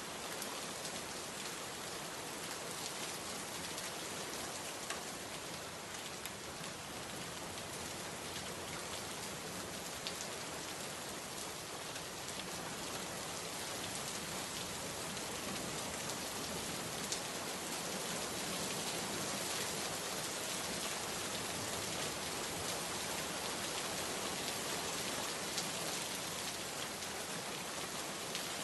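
Steady rain: a dense, even hiss with scattered faint drop ticks.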